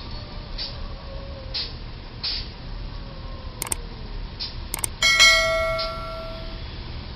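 Two mouse clicks, then a single bright bell ding that rings out and fades over about a second and a half. It is the sound effect of a YouTube subscribe-and-notification-bell animation, laid over faint street noise.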